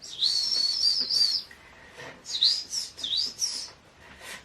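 A bird chirping: a high warbling run about a second long, then two shorter swooping chirps.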